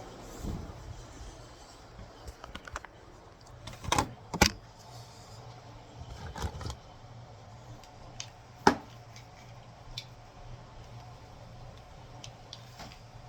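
Scattered knocks and clinks of cookware being handled, the loudest about four seconds in and again near nine seconds, over a steady low hum and faint hiss.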